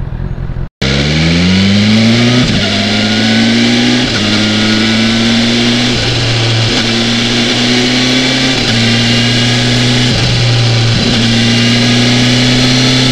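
BMW S1000XR's inline-four engine pulling away: its pitch climbs steeply after a brief cut near the start, drops at upshifts about two and a half and four seconds in, then runs steadily at cruising speed with a few small dips at later shifts.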